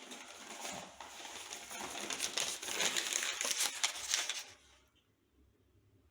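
Paper being crumpled by hand, a dense crackling rustle that stops about four and a half seconds in.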